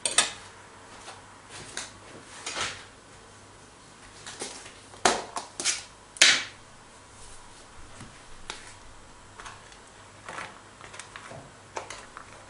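Tortilla heating in a frying pan on a gas hob, giving scattered short crackles, with a cluster of louder ones about five to six seconds in.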